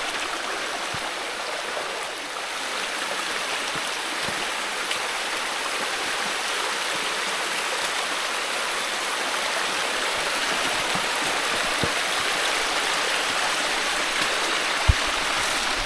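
Mountain stream running high after days of heavy rain: a steady rush of flowing water, with one sharp knock near the end.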